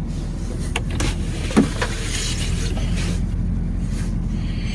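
Plow truck's engine running steadily, heard from inside the cab as a low drone, with a few light clicks and knocks in the first couple of seconds.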